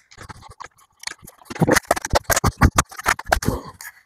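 Hard plastic housing of a Greenworks 82V battery pack being pried open and handled: a quick run of clicks, knocks and rattles as the top cap comes off and the case is lifted, sparse at first and densest in the middle.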